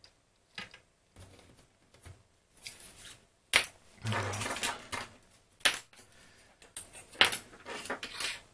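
Irregular small clicks and taps from hands handling telephone parts and meter test leads, with a short stretch of clattering and rustling about four seconds in.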